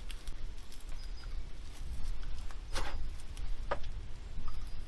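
Small clicks and rustles of hands loading a paper cartridge into the breech chamber of a muzzle-free Kammerlader percussion rifle, with two sharper clicks just before and after the three-second mark, over a steady low rumble.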